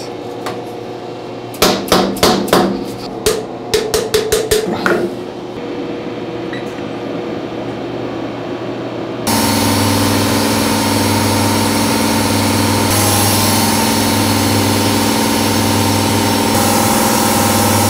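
A run of sharp metallic knocks in the first few seconds. Then, about nine seconds in, a Haas VF-3 CNC mill suddenly starts fly-cutting a metal block: a steady, loud machining sound from the spinning fly cutter that shifts twice as the cut goes on.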